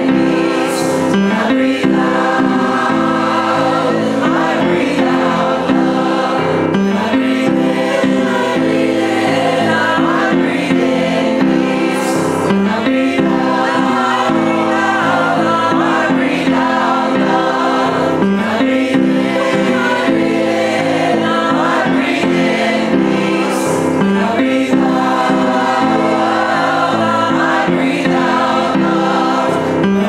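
Choir singing in harmony, with long held notes and the chords changing every second or two.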